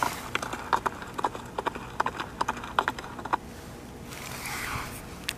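Horse hoofbeats sound effect at a run, a quick string of sharp clip-clops that stops about two-thirds of the way through, followed by a soft hiss near the end.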